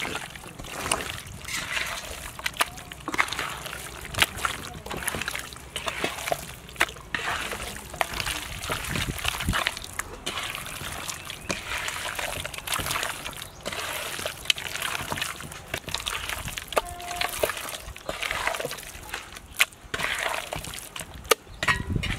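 Hands squishing and kneading raw beef tongue pieces in a wet spice paste in a metal basin: irregular wet squelches and slaps with many short sharp clicks.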